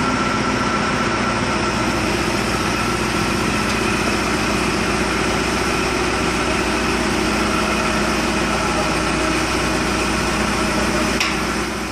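Backhoe loader's diesel engine running steadily at a constant pitch while its arm holds a suspended stone block, dipping briefly just before the end.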